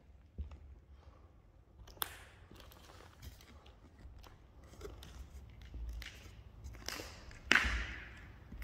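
Faint footsteps and scattered small knocks and clicks, with a sharp thump about two seconds in and a louder knock near the end, over a low rumble.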